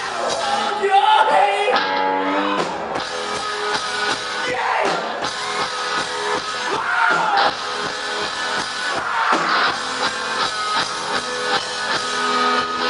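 Rock band playing live: electric guitars and drums, with a singer's voice over them.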